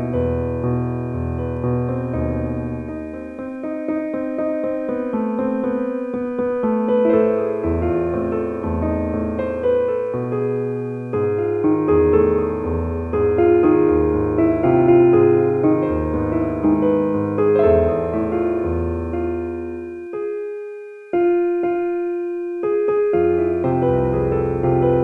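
Slow, relaxing piano music of sustained chords over a low bass line. About twenty seconds in, the bass drops out for a few seconds, leaving a single held chord, and then comes back.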